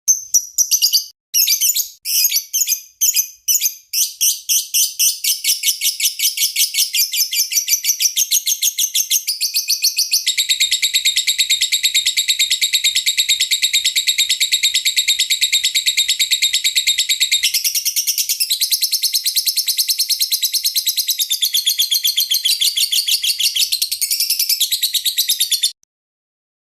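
Lovebird song: quick, sharp chirps run together and, about ten seconds in, give way to a long, unbroken rapid trill. The song then changes pattern and stops abruptly near the end.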